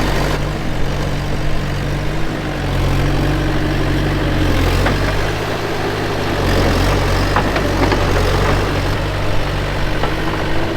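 Bobcat skid steer's diesel engine running as the machine works, its pitch dropping and rising again several times under changing load, with a few light clanks.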